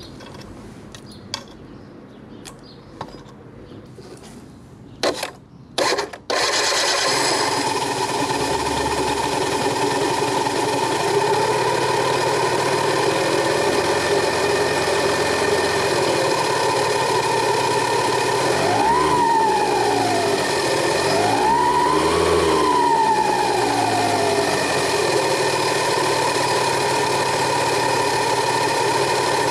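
Scooter engine started with its variator cover off, so the drive belt and pulleys run exposed. A few sharp knocks come first, then the engine catches about six seconds in and idles steadily. It is revved twice in the second half, the pitch rising and falling each time.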